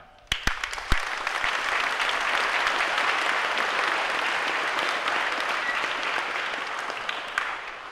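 Crowd applauding. A few sharp claps start it, then it becomes dense, sustained applause that tapers off near the end.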